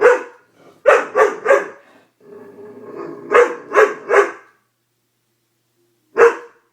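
Doberman barking in groups: a single bark, a quick run of three, three more a couple of seconds later, and one last bark near the end. It is the alarmed barking of a dog scared of something strange in front of her.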